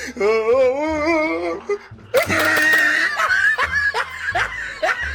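A person laughing, a long wavering laugh followed by shorter bursts, over background music with a low beat.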